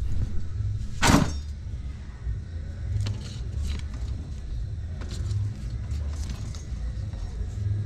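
Tomatoes being picked through by hand in a plastic basket rack: one sharp plastic knock about a second in, then lighter clicks and rattles, over a steady low rumble.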